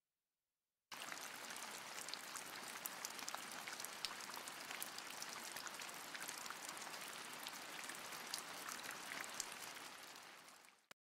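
Ice cubes crackling and fizzing in a freshly poured iced latte: a dense patter of fine ticks that starts suddenly about a second in and fades out near the end.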